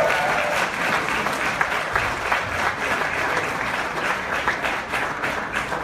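An audience applauding: many hands clapping steadily together, easing off a little near the end.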